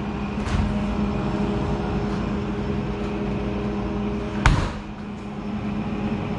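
Commercial stainless-steel reach-in freezer's refrigeration unit running just after being plugged in: a steady hum with a low tone from the compressor and fan. A single sharp knock about four and a half seconds in.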